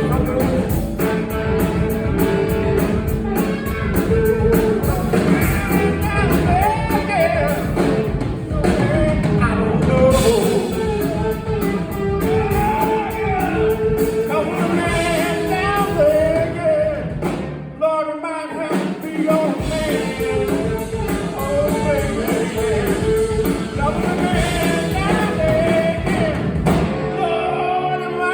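Live blues-rock band playing with singing and electric guitar, with a brief break about two-thirds of the way through.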